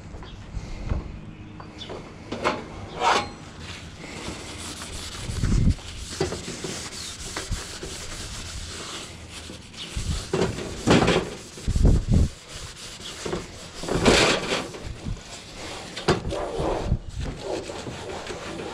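Paper towel rubbing and wiping over the sheet-steel surfaces of a Coleman two-burner propane stove in irregular scrubbing strokes, with a few dull thumps.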